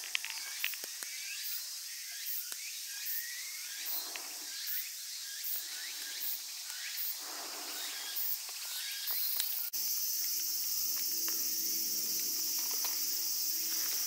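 Summer insects shrilling in a steady high hiss that pulses about once a second, with short repeated chirps in the first few seconds. Near the end the sound cuts abruptly to a louder, steadier insect drone with a faint low hum beneath it.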